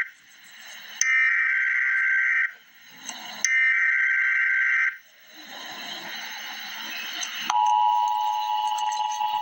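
Emergency Alert System broadcast: two bursts of digital SAME header data tones, each about a second and a half long, carrying the coded alert. After a short gap of faint hiss, the steady two-tone EAS attention signal begins about seven and a half seconds in.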